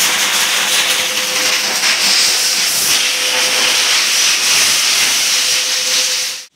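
Pet-grooming high-velocity dryer blowing air through its hose onto a wet dog's coat: a loud, steady hiss with a faint steady hum under it. It cuts off suddenly near the end.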